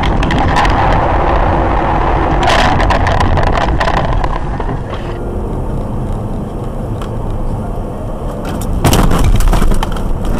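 Road and engine noise of a moving car, heard from inside the cabin through a dashcam's microphone, with a run of sharp clicks and crackles between about two and a half and four and a half seconds in. About five seconds in it changes abruptly to a quieter, duller road noise, and a loud burst of noise about a second long comes near the end.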